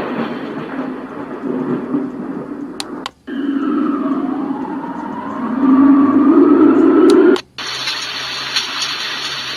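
A children's alarm clock's small built-in speaker playing its preset alarm sounds one after another. A noisy first sound is followed, after a brief break, by one with a slowly rising tone over a low rumble, the loudest part. After another break comes a steady hiss.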